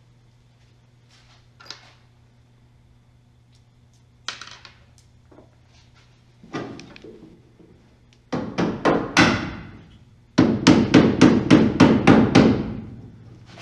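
Hammer blows: a few light knocks, then a run of about six quick strikes and, after a short pause, about nine more at roughly four a second.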